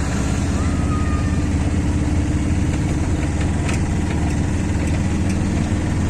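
An engine running steadily close by, a low, even hum with no change in speed.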